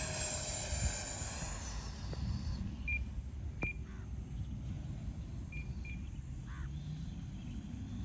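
Electric ducted-fan whine of a Freewing F9F-8 Cougar RC jet, a steady high whine that fades out about two and a half seconds in. After it come four short high beeps, two single ones and then a quick pair, over steady low wind rumble.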